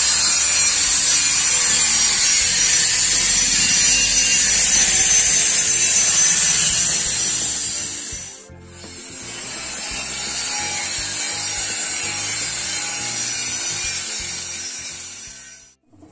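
Electric power tool scouring rust off a steel truss tower before repainting: a steady, high-pitched rasping. It dips briefly partway through, goes on a little quieter, and stops just before the end.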